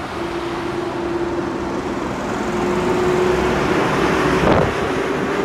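ŽSSK class 350 electric locomotive rolling slowly past, its steady whine climbing slightly in pitch over wheel-on-rail noise that grows louder. A sharp knock comes about four and a half seconds in.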